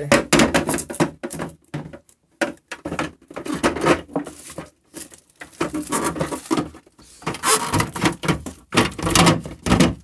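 Irregular rustling, bumping and thuds from a phone being handled and carried around, its microphone rubbed and knocked in a small room.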